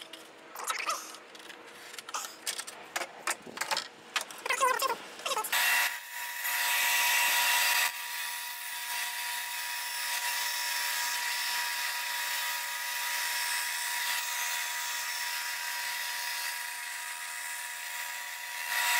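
Short squeaks and clicks, then, about six seconds in, a bandsaw running steadily with a whining motor as it cuts a thin plywood strip. It is loudest for the first couple of seconds.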